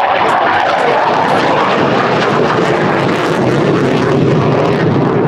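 Panavia Tornado jet, with its twin RB199 turbofans, making a loud low pass. The steady engine roar drops slightly in pitch over the first couple of seconds.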